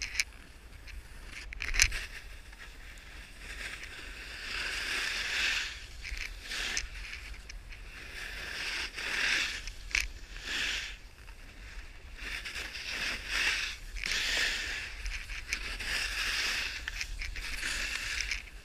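Snowboard sliding and carving on snow: a hissing scrape that swells and fades with each turn, over a low wind rumble on the pole camera's microphone. A sharp knock about two seconds in is the loudest sound, with another about ten seconds in.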